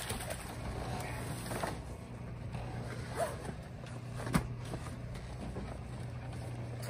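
A canvas boat cover and its bungee cords being handled: rustling with a few scattered clicks and knocks, the sharpest about four seconds in, over a steady low hum.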